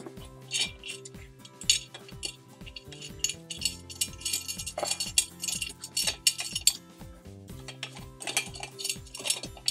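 Background music with a steady, fast drum beat over held bass notes.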